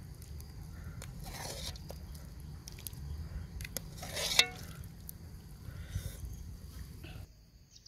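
A metal spoon scooping soup in a metal pot and ladling it into a bowl: light clinks and liquid splashes, the loudest a scrape about four seconds in. Under it run a low wind rumble on the microphone and a steady insect trill, and the rumble drops away near the end.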